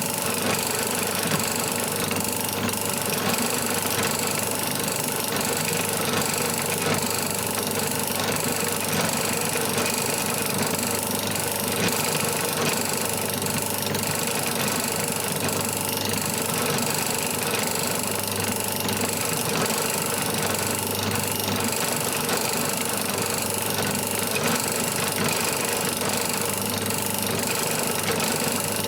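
Pillar drill running steadily, spinning a roll-crimp die that is being worked down onto .410 shotshell cases one after another.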